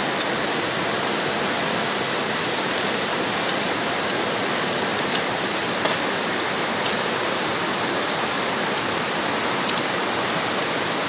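Steady rush of flowing stream water, with a few faint sharp clicks scattered through it.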